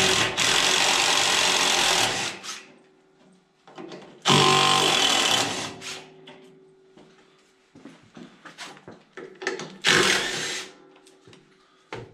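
Handheld power tool run in three bursts, about two seconds, just under two seconds and under a second long, backing out fasteners while the radiator is being taken out of the excavator. Light clicks and knocks in between.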